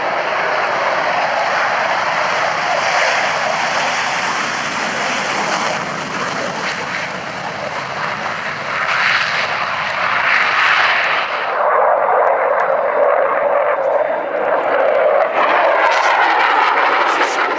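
Saab SK35C Draken jet taking off and climbing away with its afterburner lit: a loud, continuous jet engine noise. About two thirds of the way through, the upper hiss falls away and the engine sound becomes fuller and louder as the jet passes overhead.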